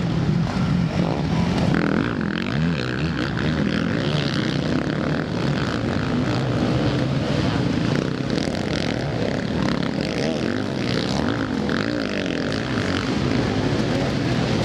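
Several motocross bikes racing on a dirt track, their engines revving hard, the pitch rising and falling as riders accelerate, shift and corner.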